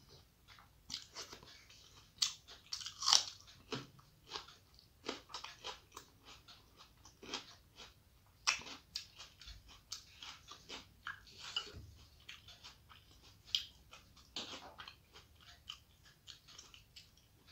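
Close-up eating sounds of someone eating rice and curry by hand: irregular wet chewing and mouth smacks, with fingers working the rice on the plate.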